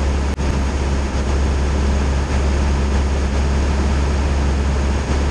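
Steady drone of a Cessna 172 Skyhawk's piston engine and propeller in cruise, heard inside the cabin, with a brief dip about a third of a second in.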